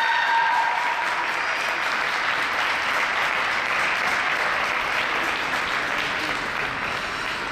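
Audience applauding steadily at the end of a figure skating program, with a last held note of the program music fading out about a second in.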